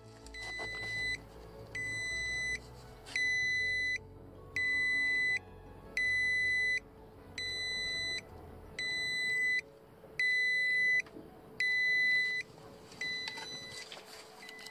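UltimateSpeed UPK 10 C1 power bank beeping: a steady run of about ten identical high electronic beeps, each under a second long, repeating about every 1.4 seconds.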